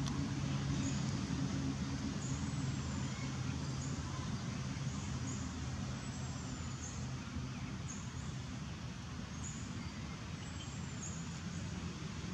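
A motor vehicle engine running steadily, a low hum over constant background noise, slightly fading after the first few seconds.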